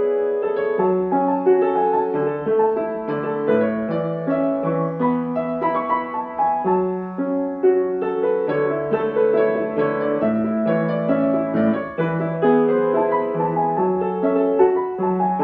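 Upright acoustic piano played solo: a lyrical melody over a flowing, steady accompaniment, the notes held and overlapping.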